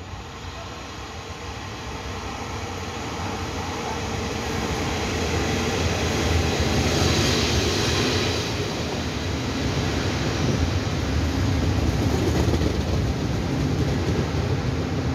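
TRA E200-series electric locomotive (E217) hauling orange-and-cream passenger coaches into the station. The rumble of wheels on rails builds as it approaches and is loudest as the locomotive passes about halfway through, then carries on as the coaches roll by.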